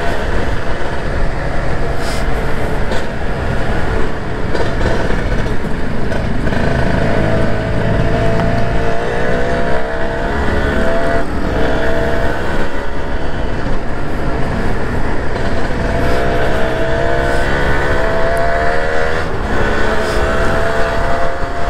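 Kawasaki Ninja 150R's single-cylinder two-stroke engine pulling through the gears: its pitch climbs, drops at each shift, and climbs again. Wind rumbles on the microphone throughout.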